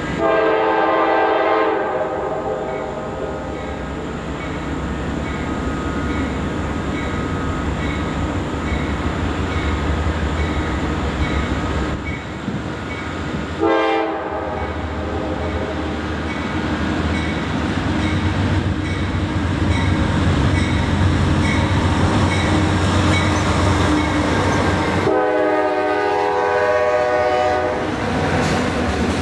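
Norfolk Southern diesel freight locomotives approaching and passing, sounding the air horn three times: a blast of about two seconds at the start, a short toot about 14 seconds in, and a longer blast of about three seconds near the end. Between the blasts the locomotives' diesel engines drone low and grow louder as the train closes in, and wheels start clicking over the rail joints as the cars come by.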